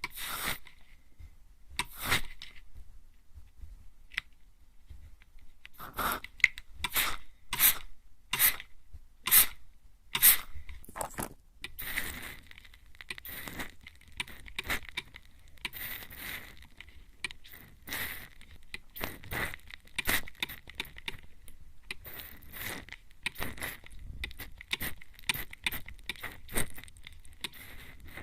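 Mist spray bottle spritzing close to the microphone in short hissing puffs. A few puffs come well spaced, then they come quicker and more irregularly through the second half.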